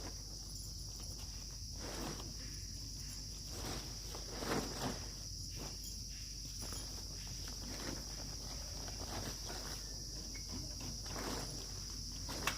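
Steady high-pitched chorus of insects, with scattered soft rustles and footstep-like knocks over it.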